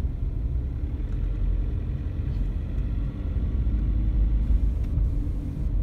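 Steady low rumble of a car on the move, its engine and tyre noise heard from inside the cabin.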